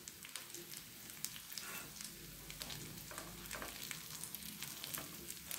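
Semolina-coated fish seekh kebabs sizzling faintly in shallow oil in a pan over a low flame, a soft steady hiss with scattered small crackles.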